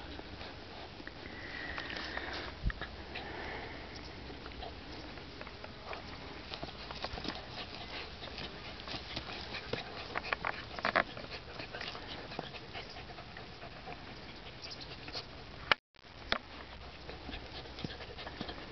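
Puppies sniffing and snuffling with their noses in a freshly dug hole, with many short scratches and clicks as paws scrape at the soil.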